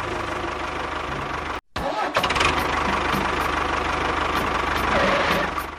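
Engine running steadily with an even low hum. It cuts out abruptly for a moment about one and a half seconds in, then carries on.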